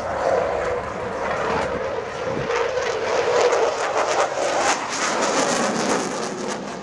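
Jet engine noise from a Dassault Rafale's twin engines as the fighter flies a low display pass. The noise rises sharply at the start and stays loud, with a few crackles past the middle, then eases near the end.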